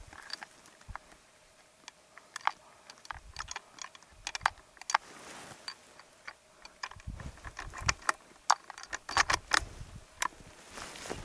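Irregular sharp clicks and light taps close to the microphone, with a few soft low thumps: small gear being handled.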